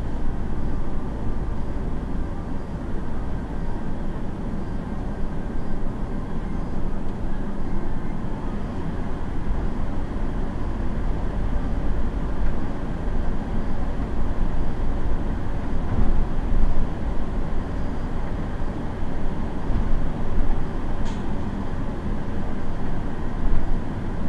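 City bus running, heard from inside at the driver's seat: a steady low rumble of engine and road noise.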